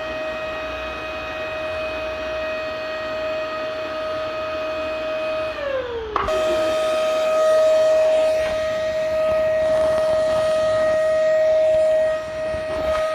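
Vacuum cleaner motor running with a steady high whine. A little past five seconds in, the whine starts to drop in pitch as if winding down. Then there is a click and it is straight back at full speed.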